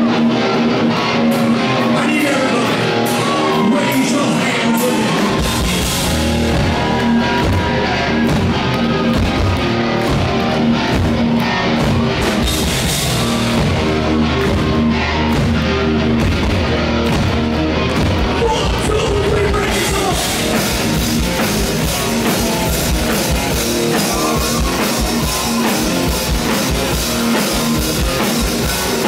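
Live rock band playing loud through the PA: electric guitar, drums and bass under a lead vocal. The bass and kick drum come in about five seconds in, and the cymbals and full band open up around twenty seconds in.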